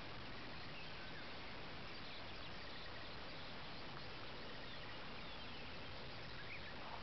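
Steady outdoor hiss with a few faint, scattered bird chirps.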